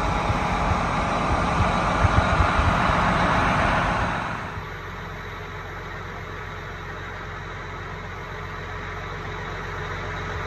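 A loud rushing, rumbling noise for about four seconds, then after a cut a quieter, steady low hum of a John Deere tractor engine running, heard inside the cab.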